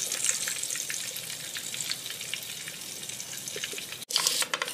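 Hot oil sizzling and crackling in a frying pan, with freshly fried fish held up in a wire strainer above it to drain. Just after four seconds the sizzle cuts off and a brief clatter follows as the fish are tipped from the strainer onto a plate.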